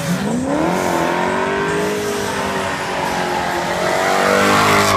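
BMW drift cars' engines revving hard at high rpm, the pitch climbing sharply just after the start and again near the end. Underneath is the hiss and screech of tyres spinning and sliding sideways on the asphalt.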